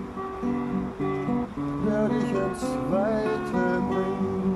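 Nylon-string classical guitar strummed in steady chords, the chord changing every second or so.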